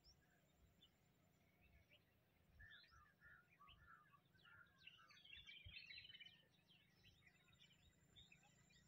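Faint birdsong: several birds chirping in short, quick notes, busiest from about two and a half to six and a half seconds in.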